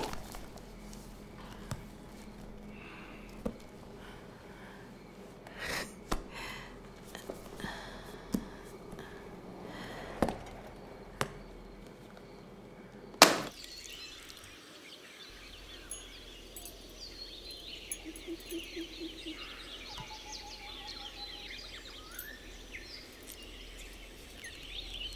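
Faint scattered soft knocks and rustles, then one sharp knock about halfway through. After it, faint outdoor ambience with many short high chirps.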